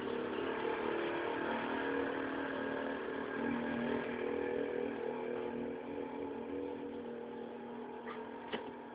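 A motor or machine running steadily, its hum wavering slightly in pitch, with a couple of sharp clicks near the end.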